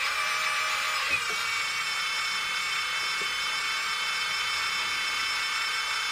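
Scale model Volvo L220E wheel loader's small electric-driven hydraulic pump whining steadily while the lift arms lower the bucket, with a slight change in the whine about a second in.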